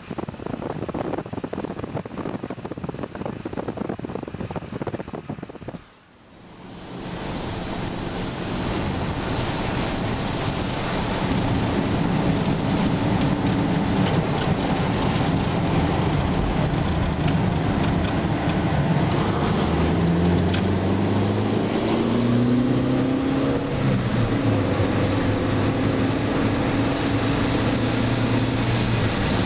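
Car driving on a wet road, heard from inside: a steady hiss of tyres on wet tarmac with engine hum underneath. The sound cuts out briefly about six seconds in, and about two-thirds of the way through the engine rises in pitch as the car speeds up, then holds steady.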